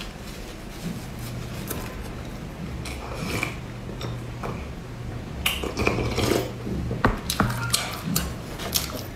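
Close-miked eating and drinking sounds: sips from a ceramic bowl, with the bowl clinking and knocking against a wooden board and light chewing. The knocks come thickest in the second half.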